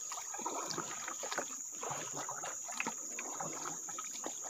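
Water sloshing and scattered small knocks and splashes around a small boat on a river, under a steady high-pitched insect drone.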